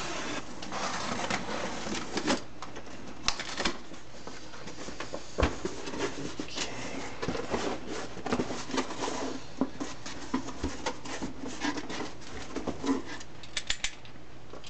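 Knife slicing the packing tape on a cardboard shipping box, then the flaps pulled open: an irregular run of scrapes, rustles and light knocks of cardboard, with one sharper knock about five seconds in.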